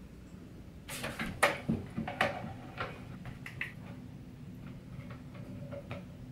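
Handling knocks and clicks, loudest in a quick cluster from about one to three seconds in, then lighter taps as bare feet step onto a digital bathroom scale.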